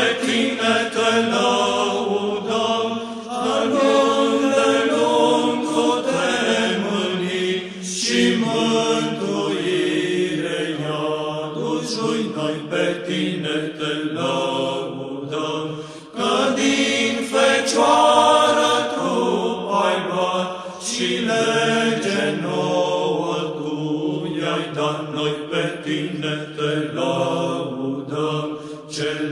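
Background music: a Romanian Orthodox hymn of praise sung in slow chant, the voices holding long notes with a short break about sixteen seconds in.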